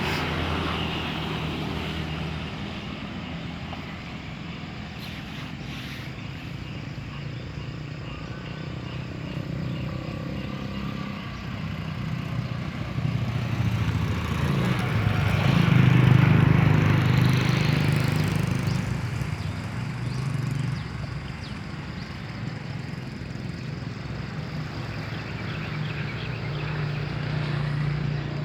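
A small engine running steadily, growing louder to a peak about halfway through and then fading, like a motor passing close by.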